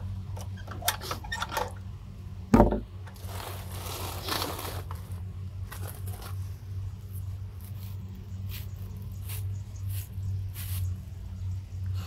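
Handling at a wooden snake cage: small metal latch clicks, then one loud wooden thump about two and a half seconds in as a wooden box frame is set down on it. After the thump come a couple of seconds of rustling from tarpaulin sacks and a nylon net bag, then scattered light knocks, over a steady low hum.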